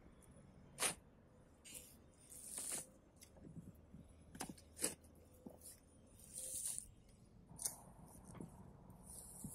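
A long-handled digging tool striking and scraping dry soil and straw stubble: a few sharp strikes with gritty, scraping drags of earth between them.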